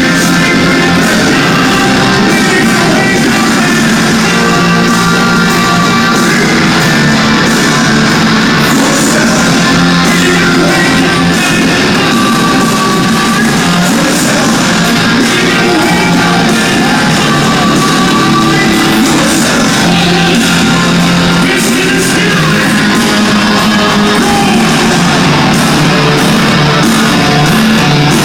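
Live hard rock band playing at full volume: distorted electric guitars and drums with sung vocals, steady and dense throughout.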